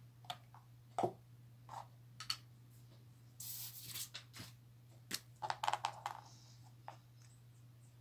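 Scattered light clicks and taps from small objects being handled on a work table, with a brief scratchy rustle about three and a half seconds in and a quick run of clicks a little later, over a steady low electrical hum.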